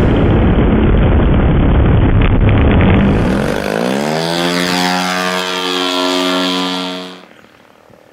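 Large-scale RC Carbon Cub's engine and propeller. For about three seconds a loud, rough blast of engine and wind noise. Then a clear engine note rises in pitch as the throttle opens for the go-around and holds a steady drone, until it drops away sharply near the end.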